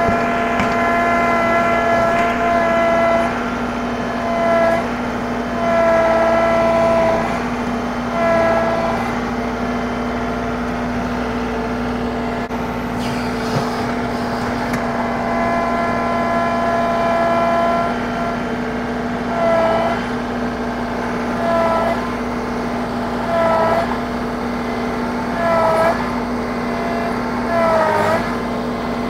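John Deere 2038R compact tractor's three-cylinder diesel engine running steadily as the front-end loader bucket is worked. Its pitched drone swells and dips briefly several times, about every two seconds in the second half.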